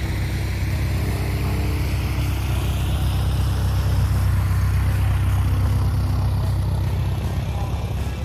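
Aerobatic biplane's piston engine and propeller running under power as it pulls up into a vertical climb, a steady low drone that swells slightly mid-climb.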